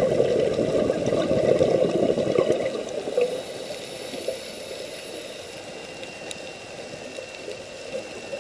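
Underwater bubbling and gurgling, loud for about the first three seconds, then fading to a quieter steady underwater hiss with a few faint scattered clicks.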